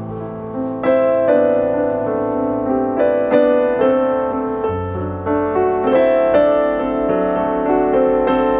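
Background piano music: a melody of struck notes, each ringing and fading, over slower-changing bass notes.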